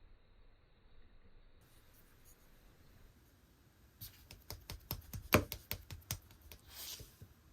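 Slime being handled: a quick run of sharp clicks and crackles, about a dozen over three seconds with one louder pop among them, ending with a short rustling squish.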